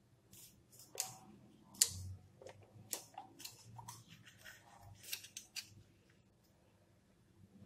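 A dozen or so short, sharp clicks and snips, spread over the first five and a half seconds.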